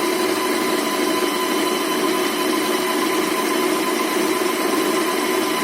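Usha Janome Stitch Magic electric sewing machine running at a steady speed, stitching a stretch-stitch pattern, a continuous motor hum and whir with no change in speed.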